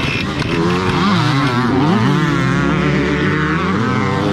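Several two-stroke motocross bike engines revving together, their pitches rising and falling and overlapping.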